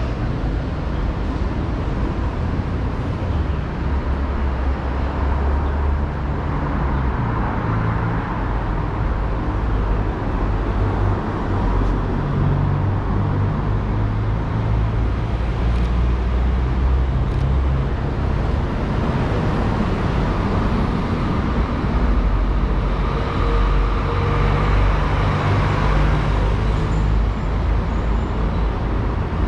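Steady road traffic noise: a continuous rumble of vehicle engines and tyres.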